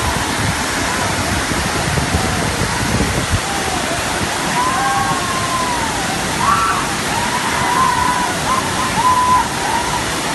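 Waterfall pouring steadily, with distant voices faintly over it in the second half.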